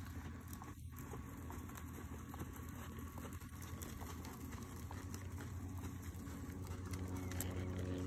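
Horse hoofbeats on soft, sandy arena dirt, muffled, over a steady low rumble. A low hum comes in near the end.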